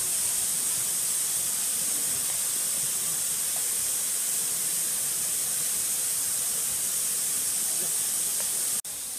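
Steady, even hiss with a high-pitched edge; it drops abruptly to a quieter hiss near the end.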